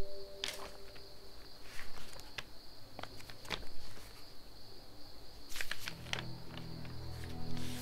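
Steady high chirring of crickets, with short rustles and soft clicks of paper as a notebook is opened and its pages are turned. Low music comes in near the end.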